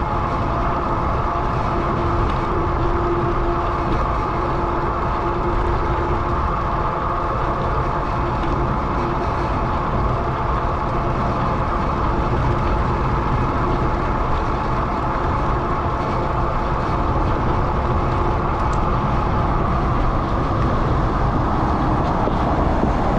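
Steady riding noise from a Lectric XP e-bike under way: wind on the microphone and tyre rumble, with a faint steady whine through it.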